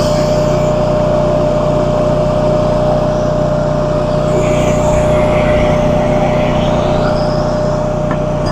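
Small engine running steadily at a constant speed, with a fixed pitched tone over a low hum.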